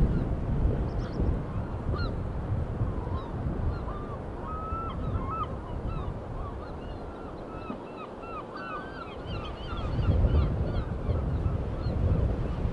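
A flock of seaside birds calling in many short, quick calls, thickest in the middle and thinning out near the end. Underneath is a low wind rumble that gusts louder at the start and again near the end.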